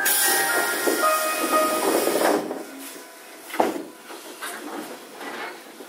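Inside a Randen Mobo 21 retro tram: a short electronic chime melody over a hiss of air, ending about two and a half seconds in, then a single sharp clunk. Quieter tram running noise follows.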